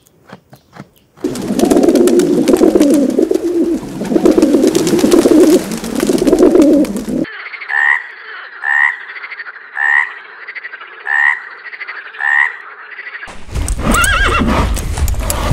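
A frog croaking: first a long run of rough, pulsing croaks, then six short calls about a second apart. Near the end a horse whinnies.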